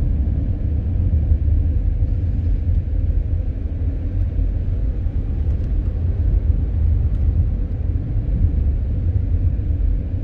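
Steady low rumble of a 2015 Audi A4 35 TDI diesel sedan on the move, heard inside the cabin: road and tyre noise with the engine underneath, even throughout.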